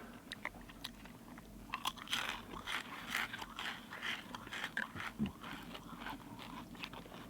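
Close-up crunching and chewing: a person biting into and eating a cheese-flavoured MRE snack, in irregular crackly bites that are busiest about two to four seconds in.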